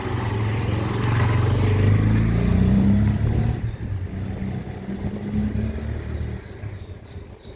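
A motor vehicle's engine passing close by, growing louder with a slight rise in pitch, peaking about two to three seconds in, then fading away. Small birds chirp faintly near the end.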